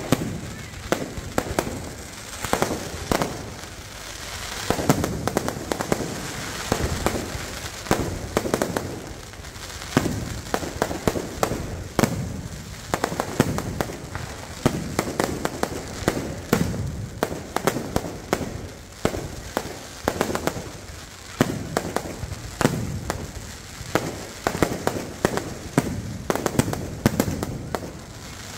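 Fireworks display: aerial shells and rockets bursting overhead in a dense run of sharp bangs and crackles, several a second, without a pause.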